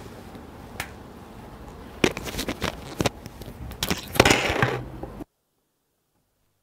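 Handling noise: a single click, then a cluster of sharp clicks, knocks and rustling over a low steady background, before the sound cuts off abruptly to dead silence about five seconds in.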